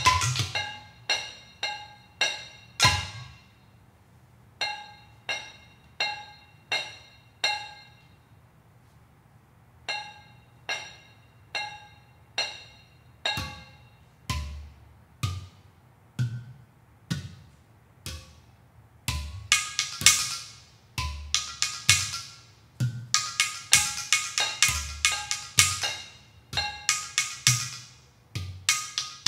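Hand-thrown ceramic pots, bowls and udu-like vessels struck by hand and with wooden sticks, each stroke a sharp, bright ringing note. Spaced single strokes with a short pause give way, about two-thirds of the way through, to dense, fast interlocking strokes.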